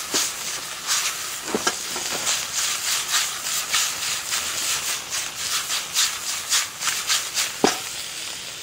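Food sizzling and frying in a hot pan: a steady hiss full of irregular crackles, with a sharper pop about one and a half seconds in and another near the end.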